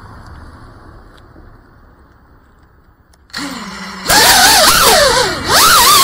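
Faint low background noise, then about three seconds in the motors of a 3-inch FPV cinewhoop quadcopter spin up with a low hum. About a second later they jump to a loud whine that rises and falls with the throttle as the drone takes off and flies.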